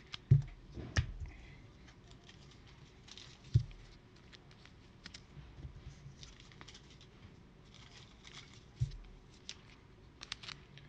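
Trading cards being handled and sorted on a table: light rustling and sliding of card stock with scattered small clicks, and a few soft thumps, the loudest just after the start and others about a second, three and a half and nine seconds in.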